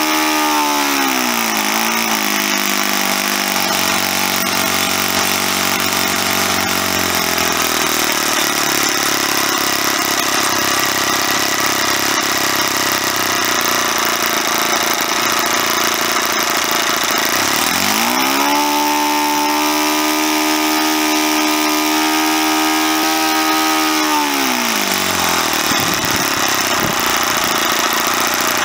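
Super Custom .52 four-stroke model aircraft engine running with its propeller spinning, now with good compression after its broken valve adjustment screw was replaced. It drops from high revs to idle within the first couple of seconds, idles evenly, is throttled up again past the middle, holds high revs for about six seconds, then falls back to idle.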